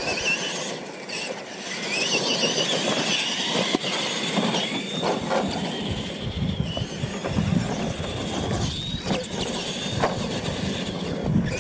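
Two R/C monster trucks racing on a dirt track. The high whine of their electric motors rises as they accelerate about two seconds in, holds, and drops away near the end, with scattered thumps as the trucks hit the ramps.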